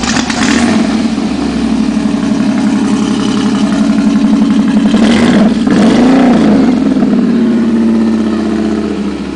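Ford Mustang engine running at idle, with one brief rev about five and a half seconds in that rises and falls back to idle.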